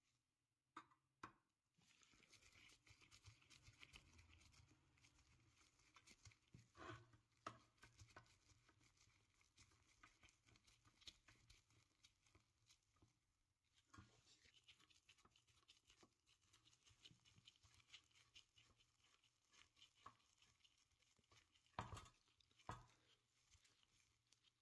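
Faint scraping and ticking of a screwdriver turning a small screw into a brass toaster casing, with a few sharper metallic clicks, the loudest near the end.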